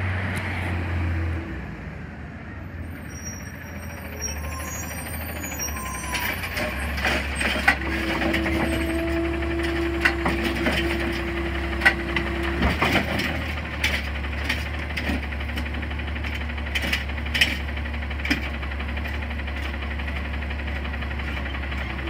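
Automated side-loader garbage truck pulling up and stopping beside the carts, its diesel engine running, louder from about seven seconds in. A steady whine lasts about five seconds midway, with scattered knocks and clatter from the truck.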